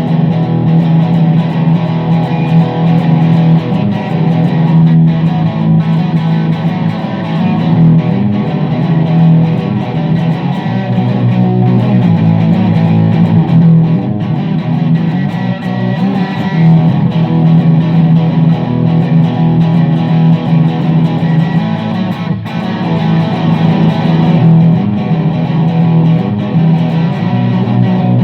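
Electric guitar played continuously through a Marshall CODE 100 amp head and 4x12 cabinet on its '1962' preset: a grungy, hard-edged overdriven tone.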